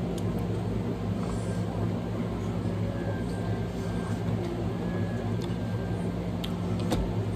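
A steady low mechanical hum, with a few faint clicks.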